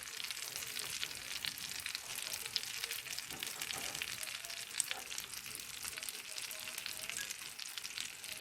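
Minced-meat kebabs sizzling and crackling as they cook, with a sauce brushed onto them.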